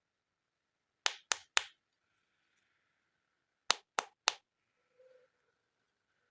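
Two quick runs of three sharp taps, the taps about a quarter second apart and the runs about two and a half seconds apart, then a faint short scrape near the end.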